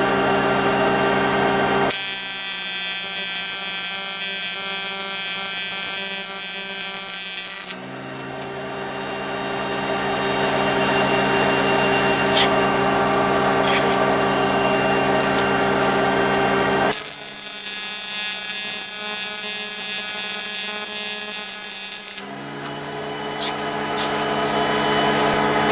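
AC TIG welding arc on aluminum, a steady electrical buzz. Its tone switches abruptly several times, about two, eight, seventeen and twenty-two seconds in, and after two of those switches the buzz builds up in loudness over a few seconds.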